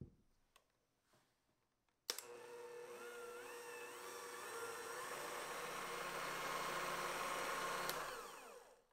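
An electric hand mixer switches on with a click about two seconds in, after near silence. It runs steadily, whisking egg whites and sugar into meringue in a glass bowl, then stops near the end, its whine falling in pitch as it spins down.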